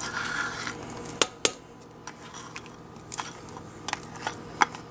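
A silicone spatula scraping sour cream out of a bowl into soft mashed potatoes, with a few light clicks and taps of spatula on bowl, irregularly spaced.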